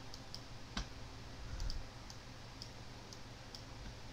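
Computer mouse clicking: about ten light, sharp clicks at irregular intervals over a faint steady low hum.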